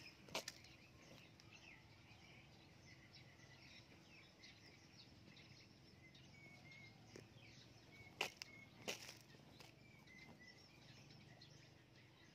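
Near silence: faint outdoor background with small bird chirps now and then and a few sharp clicks.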